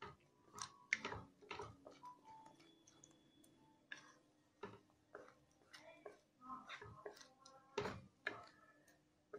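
Wooden spatula scraping and tapping against a kadai while stirring thick semolina halwa: faint, irregular clicks about every half second, the strongest a little before the end.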